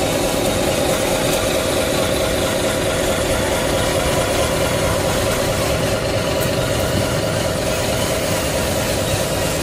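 A truck engine running steadily at an even idle-like pace, with no revving or change in pitch, heard as the engine sound of a handmade RC dump truck moving slowly.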